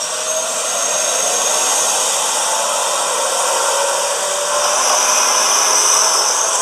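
Model train running along the track: a steady whirring rush of the motor and the wheels on the rails, growing slightly louder towards the end.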